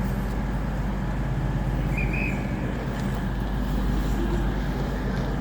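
Diesel multiple-unit train, a Class 221 Voyager, running steadily with an even low engine hum. A brief high chirp comes about two seconds in.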